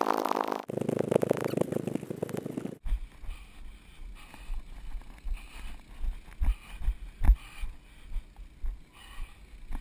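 Footfalls of a runner jolting a GoPro camera in its housing, dull thumps about twice a second with light wind hiss. Before that, a loud steady droning hum cuts off abruptly about three seconds in.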